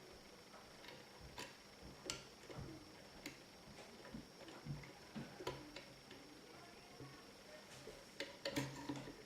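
Faint, irregular metallic clicks and taps of a 2-in-1 pick lifting and nudging the levers of a 7-lever L&F safe lock under tension, with a quick cluster of clicks near the end.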